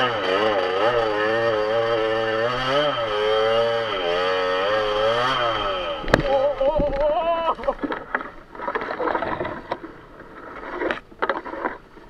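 Enduro motorcycle engine running with the throttle worked up and down as the bike pushes through tall grass. About six seconds in there is a sharp knock as the bike goes down; the engine revs briefly, then cuts out, leaving scattered knocks and rustling in the grass.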